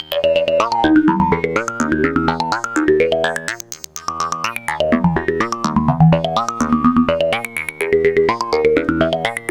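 Eurorack modular synthesizer playing a fast sequence of short plucked, ringing notes at changing pitches: Karplus-Strong plucks from a Make Noise Mimeophone set to a very short delay, combined with a pinged Make Noise Q-Pass resonant filter that is gently frequency-modulated to enrich the timbre. The notes thin out briefly a little under four seconds in.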